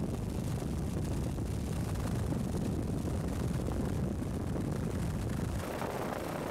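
Helicopter engine and rotor noise heard from inside the cabin: a steady low rumble. About five and a half seconds in it changes, with less low end and more midrange.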